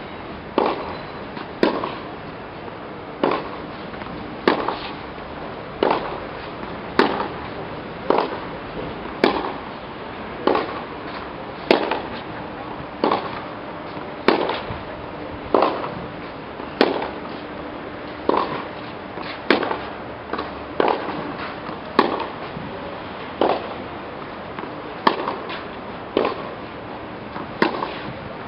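Tennis balls struck by racquets in a steady groundstroke rally on a clay court: a sharp pop about every second and a bit, with fainter knocks in between.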